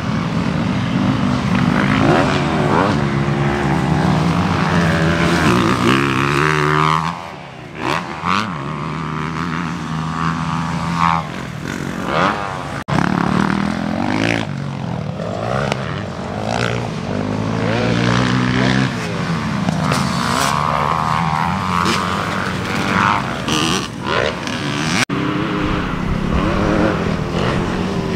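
Motocross dirt bike engines revving hard and dropping off again and again as the bikes climb and jump the track, heard from trackside. The pitch rises and falls with each throttle blip, with a few sudden breaks where the sound jumps to another bike.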